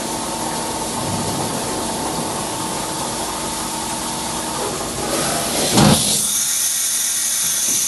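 Makino A51 horizontal machining center running: a steady mechanical whir with a low hum. About five seconds in a louder rushing noise builds to a short loud burst near six seconds, followed by a steady high-pitched hiss.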